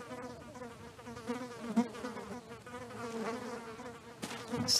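A swarm of flies buzzing, a steady drone that wavers slightly in pitch.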